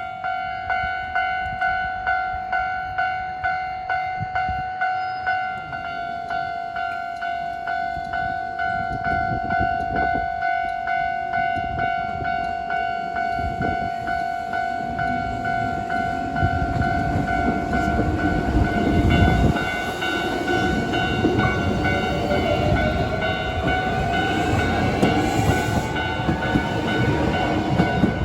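Japanese railway level-crossing warning bell ringing in a steady repeating ding, about three strikes every two seconds. From about halfway a Hankyu electric train runs over the crossing, its wheels rumbling and clattering on the rails, with a rising motor whine near the end.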